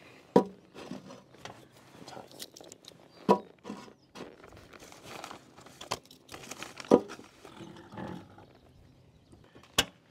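Wood chunks set into the ash-covered steel firebox of a gravity-fed charcoal smoker: several sharp knocks of wood on metal, with crunching and scraping between them, and a sharp metal clack near the end as the firebox door is shut.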